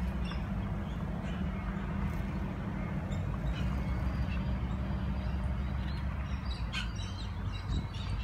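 Steady low outdoor rumble, with birds chirping in the last couple of seconds.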